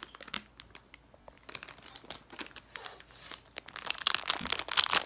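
Plastic toy packaging crinkling and rustling in irregular crackles as it is torn open, sparse at first and busier and louder near the end.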